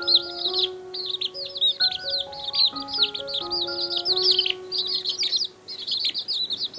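Many small birds chirping at once: a dense, constant stream of quick, high-pitched, overlapping chirps, over background music with a simple melody of held notes.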